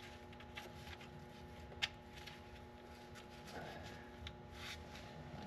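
Faint clicks and rubbing of gloved hands fitting the kickdown band anchor back into the open case of an automatic transmission, with one sharper metal click about two seconds in. A faint steady hum runs underneath.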